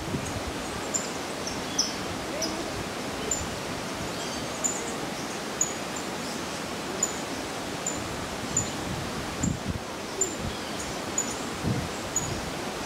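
Outdoor ambience: a steady background hiss with a short, high-pitched chirp repeating about once a second, and occasional soft rustling.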